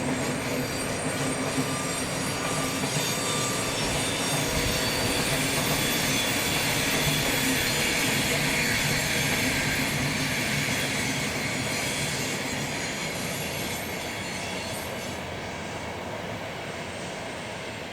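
A train running past on the line, its noise steady and then fading away over the last several seconds.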